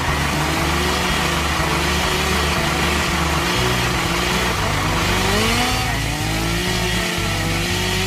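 Tractor engine sound running steadily, its pitch swelling and falling in slow waves.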